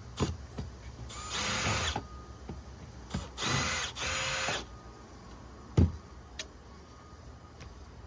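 Power drill backing out screws in three short runs, its motor whining at a steady pitch. Scattered clicks of hardware, and a sharp knock a little before six seconds in.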